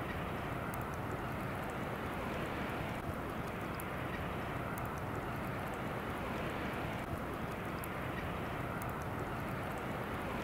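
Steady outdoor background noise, an even rushing hiss with faint scattered high ticks.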